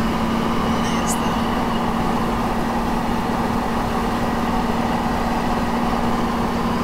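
Steady drone inside the cabin of a Toyota Land Cruiser 60 Series driving on the highway: an even engine hum with road and wind noise.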